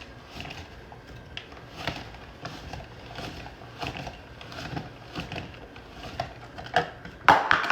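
Hand-cranked counter-mounted cheese grater shredding a block of cheese into thick shreds: a run of irregular scraping, rasping strokes, with a louder clatter near the end.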